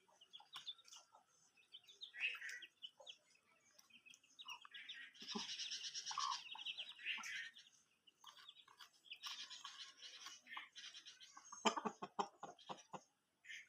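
Chickens chirping and clucking in repeated high-pitched bursts, with a quick run of sharp taps near the end.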